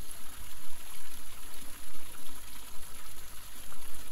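Running water trickling and splashing steadily, like a small stream, with an uneven, restless loudness.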